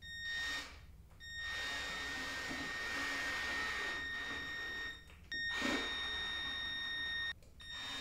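Cordless drill driving screws into the pre-drilled holes of a reptile rack's side panel, its motor whining steadily. It runs three times: briefly, then for about four seconds, then about two, with short pauses between, and starts again near the end.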